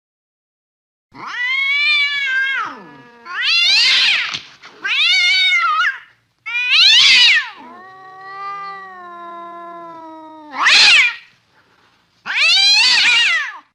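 Domestic cat meowing over and over: six loud meows, each rising and then falling in pitch. In the middle comes a quieter, drawn-out, lower call of about three seconds.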